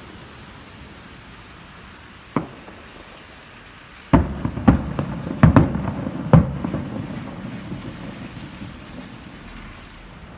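Fireworks shells bursting: one sharp bang about two seconds in, then a quick run of about six louder bangs from about four to six and a half seconds, each trailing off in a rolling rumble, over a steady background hiss.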